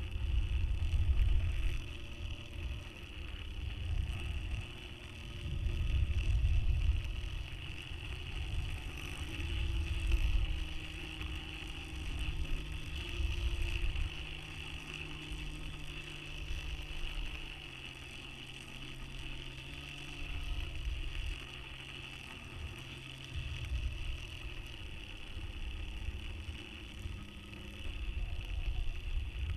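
Wind buffeting on the microphone of a camera hanging beneath a high-altitude balloon, in uneven low rumbling gusts over a steady high hiss. A faint hum steps up and down in pitch as the camera's spin-control DC motor changes speed.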